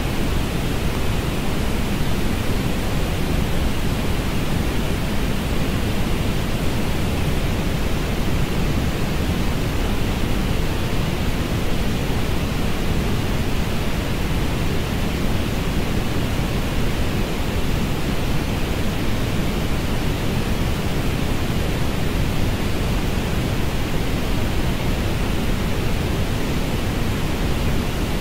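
Steady synthetic orange noise: an even, unchanging hiss, heaviest in the low end and thinning out in the treble.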